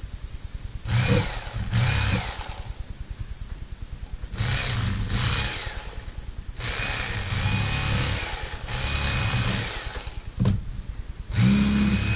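Corded electric fillet knife running with a steady fast buzz, turning louder and harsher in about five spells of a second or two as its reciprocating blades cut through small panfish. A sharp click a little after ten seconds.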